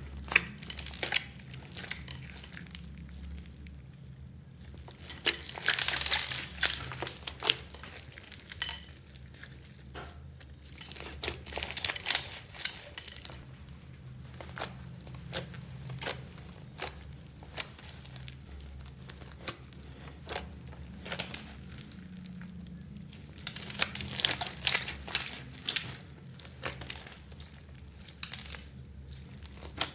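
Hands squeezing, kneading and pressing glossy slime full of small beads and short plastic straw pieces, giving a dense run of sticky clicks, pops and crackles. The crackling comes in thicker flurries about five seconds in, near twelve seconds and again around twenty-four seconds.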